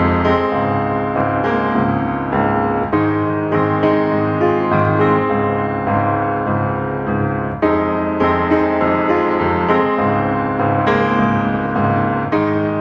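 Background music led by a piano or electric piano, with a steady run of notes and chords.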